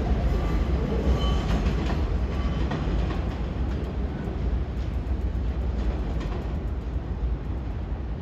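New York City subway train running on the track: a steady rumble with wheels clicking over rail joints, slowly getting quieter.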